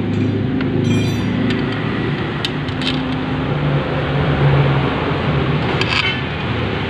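Motorcycle engine running steadily, with a few sharp clicks over it.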